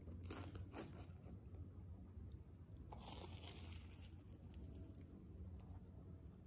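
Faint crackling of a crisp, flaky croissant crust as a fork presses into it, then a denser crunch as it is bitten about three seconds in, followed by a few small crunches of chewing.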